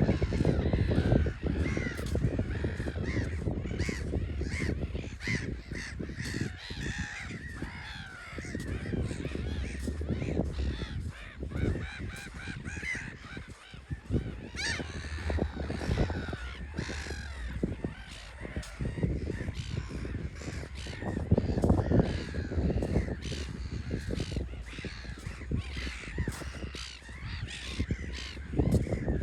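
A flock of gulls calling over one another, many short harsh calls overlapping throughout, over a steady low rumble.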